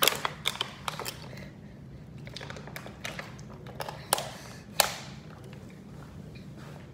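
Plastic water bottle being handled: a quick run of small clicks and crackles as its cap is twisted off, then two sharper clicks of the plastic a little past halfway.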